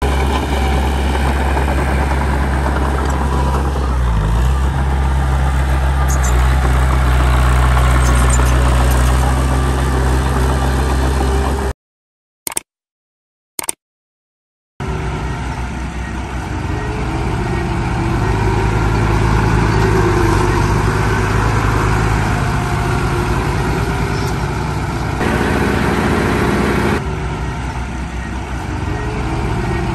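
Diesel engines of heavy earthmoving machines, a bulldozer and dump trucks, running steadily with a deep low drone. About twelve seconds in the sound drops out for roughly three seconds, broken only by two short clicks, then an engine drone with a different tone resumes.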